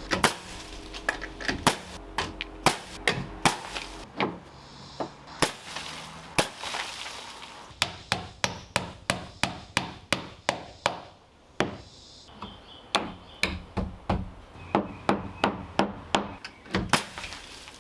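Hammer driving nails into wood, fastening sheathing and trim: runs of sharp blows, about two to three a second, with short pauses between runs.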